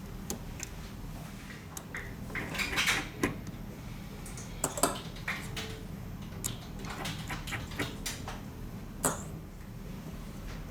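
Small tools and phone parts clicking and clinking on a workbench during a phone teardown: scattered sharp clicks at uneven intervals over a steady low hum.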